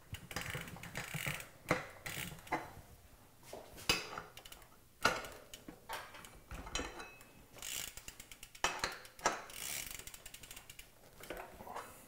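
Metal tool clinks and quick runs of clicking as bicycle pedals are snugged down on their threads with a wrench at the cranks.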